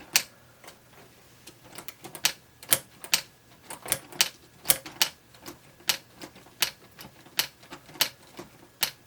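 Keys of a LEGO brick-built typewriter model pressed one after another. Each press flips a small plastic part up against the piece above it, giving a sharp plastic tap, about two a second at an uneven pace.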